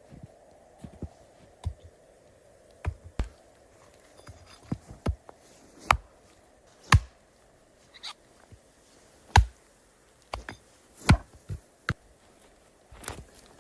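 A series of irregular sharp knocks and thuds, about a dozen, spaced roughly a second apart, the loudest in the middle of the stretch.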